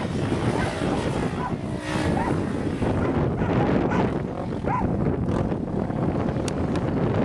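Wind buffeting the microphone over the distant engine of a Can-Am DS 450 quad being ridden, its single-cylinder four-stroke running.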